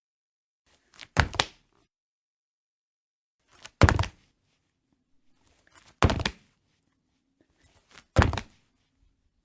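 Body-fall sound effect: a body hitting the floor four times, each a heavy thud with a short scuff before it and a few smaller settling bumps after, about two seconds apart.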